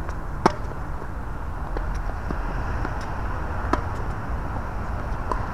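Tennis ball being struck by rackets during a doubles rally: sharp pops, the loudest about half a second in and another just before four seconds, with fainter hits and bounces between. A steady low rumble runs underneath.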